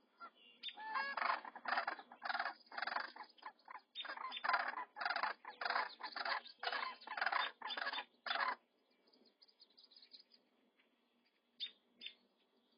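Sandhill cranes giving a loud series of rough, rolling calls, about a dozen in eight seconds, which then stop, leaving only faint high calls.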